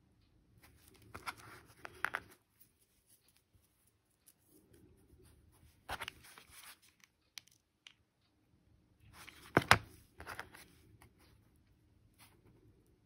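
Fingers handling tiny coquina shells and pressing them together: three short bouts of rustling and light clicking, about a second in, around the middle and about three-quarters in. The last bout holds the sharpest, loudest click.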